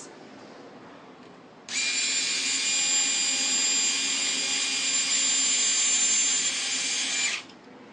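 Electric screwdriver running steadily for about five and a half seconds as it drives in the screws that fix a wall light switch to its box, with a high whine that starts abruptly and cuts off near the end.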